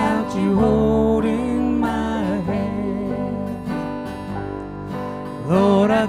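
Live gospel band playing a slow country-style song: acoustic guitar strumming over electric bass and keyboard, with long, drawn-out sung notes.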